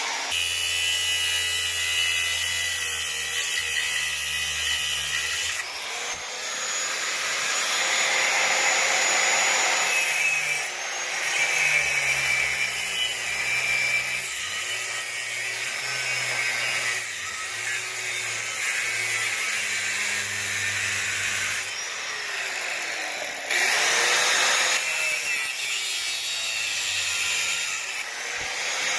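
Handheld grinder grinding down metal parts, run in several long passes with brief let-ups where the motor's pitch drops and rises again.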